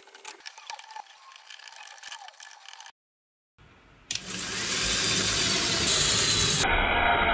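Faint clicks of 3D-printed plastic gears and bearing blocks being handled and fitted onto shafts, then, after a cut, a small DC gear motor driving a 3D-printed PLA herringbone gearbox, running loudly and steadily from about four seconds in as the output shaft winds up a lifting string.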